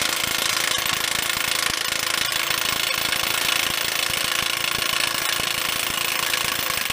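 Four-stroke gas-powered post driver running and hammering a post into the ground with rapid, even blows, which cut off suddenly near the end.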